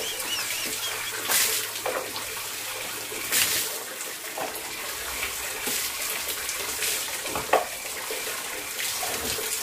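Bucket bath: water running steadily from a tap into a plastic bucket, with dipperfuls of water poured and splashing several times.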